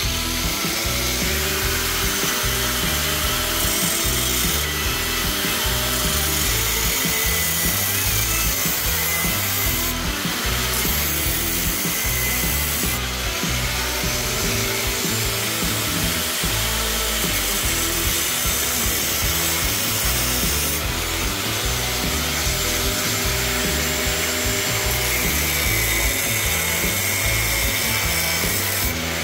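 Angle grinder with a thin cut-off disc cutting into a motorcycle's steel exhaust header pipe, a steady grinding, over background music with a steady beat.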